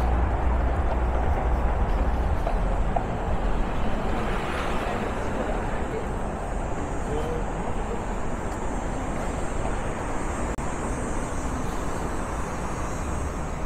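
Downtown street traffic: a steady wash of passing cars, with a deep low rumble in the first few seconds that then eases.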